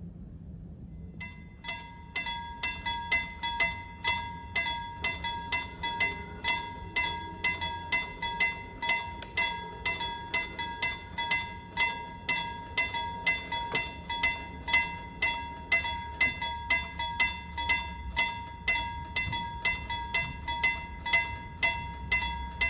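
Level-crossing warning bell at a half-barrier crossing starts about a second in and rings steadily at about two strikes a second, warning that a train is approaching.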